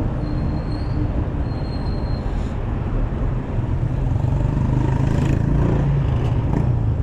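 Street traffic noise with a low rumble. A motor vehicle's engine hum grows stronger from about four seconds in.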